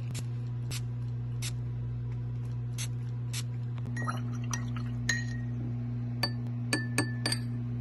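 A paintbrush tapping and clinking against a drinking-glass rinse cup as it is rinsed in water; the taps ring briefly, with a quick run of four near the end. Dry clicks come earlier, and soft background music runs underneath.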